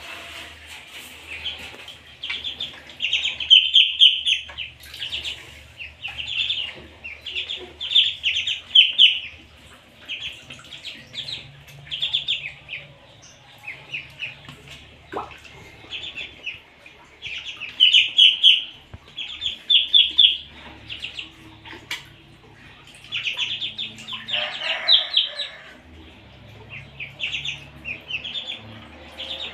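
Ducklings peeping: runs of quick, high-pitched calls that come every second or two, with one fuller, lower call near the end.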